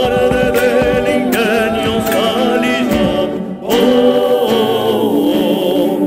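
Male voices singing an Argentine folk song in close multi-part harmony, over a drum beat about every 0.8 seconds. The beat drops out a little past halfway, the voices break off briefly, then hold a long chord.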